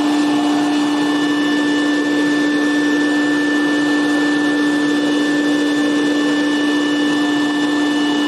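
Electric blower motor, used to dry up water, running steadily with a constant hum over rushing air.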